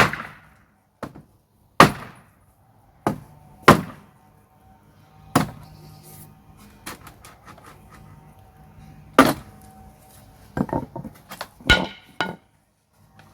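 Hammer striking a wooden pallet to knock its battens off: about ten irregular heavy blows on wood, with a quick cluster of strikes near the end.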